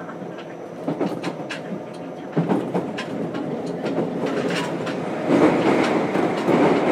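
Running noise heard from inside a JR Kyushu 303 series electric motor car, with Hitachi IGBT inverter drive, and wheels clicking over rail joints at uneven intervals. The running noise grows louder a little over five seconds in.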